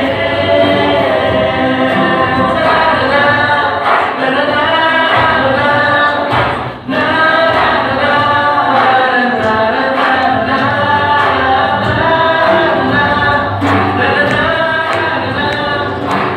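A group of young children singing a song together, with instrumental accompaniment, and a brief break in the singing about seven seconds in.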